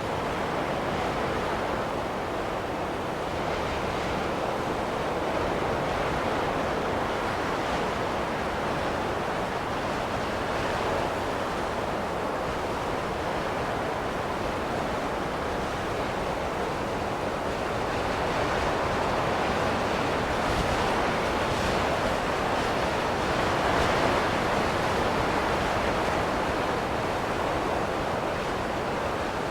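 Steady wind blowing as a continuous rushing noise, swelling a little past the middle and easing again near the end.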